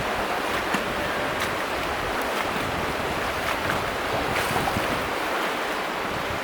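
Steady rush of the Virgin River's current, with scattered short splashes from feet being dragged upstream through knee-deep water.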